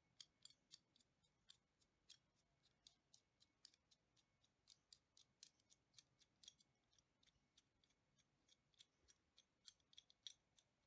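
Faint, irregular light clicks and ticks, a few a second, from the thumbwheel of a hand-made steel adjustable wrench being rolled to run the jaw in and out.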